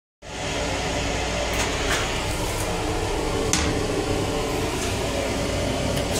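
Steady ventilation hum and running noise of a Long Island Rail Road M9 railcar, heard in its small restroom, with a few light clicks and a sharper knock about three and a half seconds in as the plastic toilet seat is handled.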